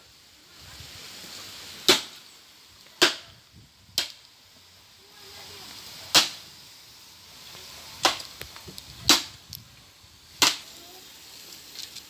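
Wood fire burning under a cooking pot, popping sharply and loudly about seven times at irregular gaps of one to two seconds.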